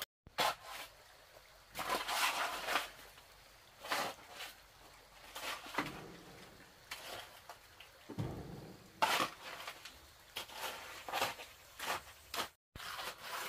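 Hoe scraping through and turning a wet concrete mix of cement, sand and stone, in irregular strokes about once a second, with a heavier thud about eight seconds in.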